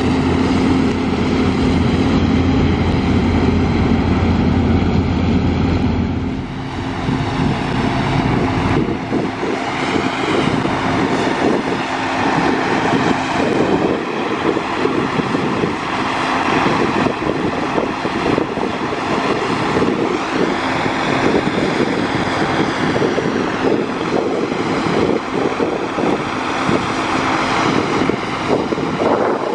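Heavy farm machinery running: a steady engine hum for about the first six seconds, then an abrupt change to a louder rushing drone whose whine slowly swells and falls several times.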